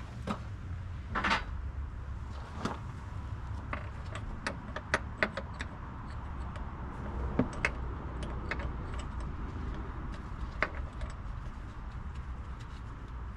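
Irregular metallic clicks and clinks of hand tools and parts being handled on a diesel engine, over a low steady rumble.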